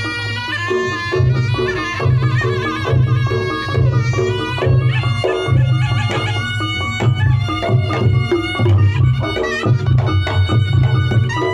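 Reog Ponorogo music played loud through a sound system: a slompret reed trumpet plays a wavering, bending melody over kendang drums and heavy low beats in a steady rhythm.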